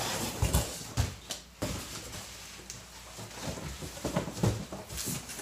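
Cardboard boxes scraping and knocking against each other, with plastic bubble wrap crinkling, as an inner box is pulled out of a larger shipping box.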